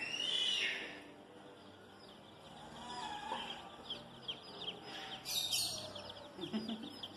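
A brood of baby chicks peeping: many short, high chirps overlapping in a dense run from about halfway through, swelling louder about five seconds in. Near the start there is one loud shrill cry that rises and falls.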